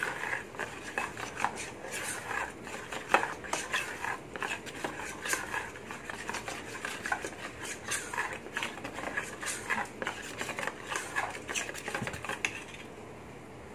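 A metal spoon stirring thick flour batter in a stainless steel bowl, with irregular scraping and clinking against the bowl. The stirring stops about a second before the end.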